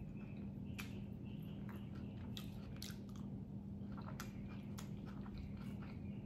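Close-miked chewing of a mouthful of taquito, with scattered sharp wet mouth clicks and crunches over a steady low hum.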